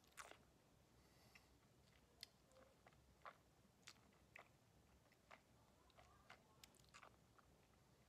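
Faint, irregular wet mouth clicks and smacks as a sip of whisky is worked around the mouth, "chewed" while tasting, over a low room hum.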